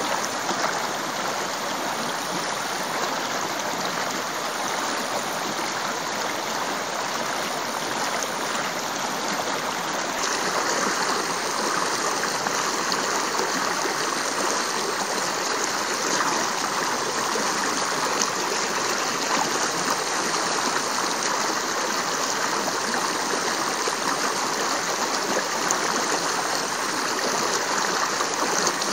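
Shallow stream flowing over rocks, a steady rush of water.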